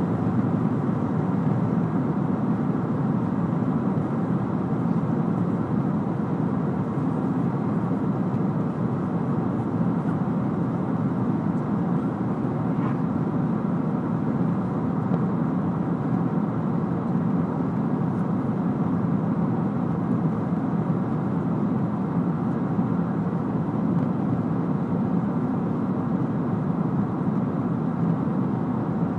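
Steady cabin noise of a Boeing 777-300ER airliner in flight: an even rush of airflow and engine drone heard from inside the cabin.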